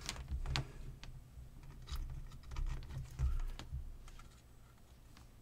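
Scattered light clicks and knocks from a small plastic-and-aluminium LED lamp fixture being picked up and handled on a work surface, dying down near the end.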